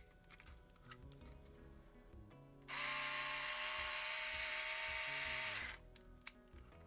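Ryobi 4V lithium-ion cordless screwdriver's motor and gearbox running at a steady pitch for about three seconds, starting a little over two and a half seconds in and stopping suddenly: a test run on its freshly replaced lithium-ion cell.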